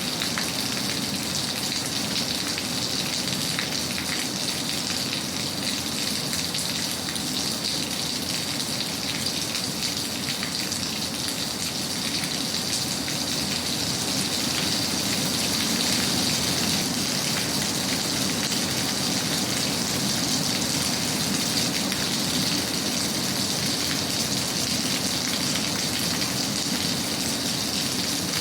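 Steady rain falling, an even continuous noise that swells slightly about halfway through.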